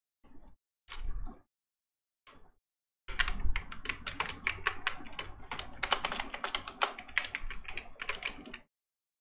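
Typing on a computer keyboard: a few short sounds in the first couple of seconds, then a dense run of keystrokes for about five seconds that stops shortly before the end.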